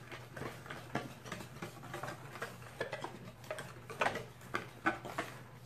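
Wire whisk stirring dry seasoned flour in a plastic tub, making quick, irregular ticks and taps as the wires knock against the container.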